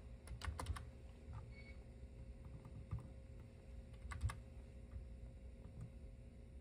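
Keystrokes on a computer keyboard as numbers are typed in: a few faint, scattered taps and short runs of two or three.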